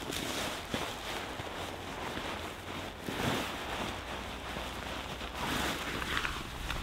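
Nylon tent fabric and a plastic groundsheet rustling as the tent is folded and rolled up by hand, in uneven swells with a few louder handlings.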